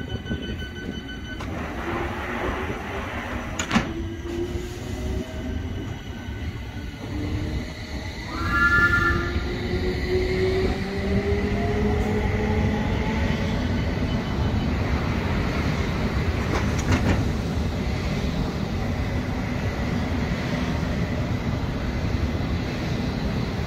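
London Underground S7 Stock District Line train departing: its doors shut with a click about four seconds in, then the traction motors whine, rising slowly in pitch as the train pulls away. Steady wheel and running noise builds as the carriages pass.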